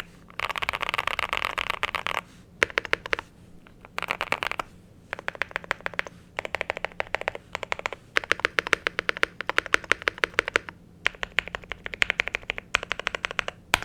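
FinalKey V65 mechanical keyboard with Tecsee Strawberry linear switches, Modern Dolch keycaps and a polycarbonate plate being typed on in several bursts of rapid keystrokes, with short pauses between the bursts.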